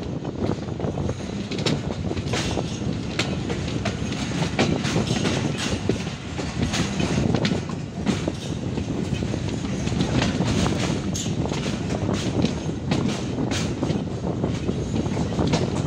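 Passenger train coach running along the track, heard from its open doorway: a steady rumble with irregular sharp clacks of the wheels over rail joints and points.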